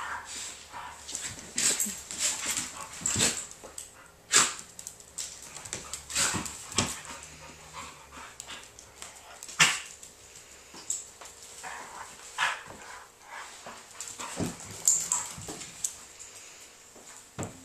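Two dogs play-wrestling on a hardwood floor: irregular short yips, whines and bark-like snaps. These are play sounds, not a fight.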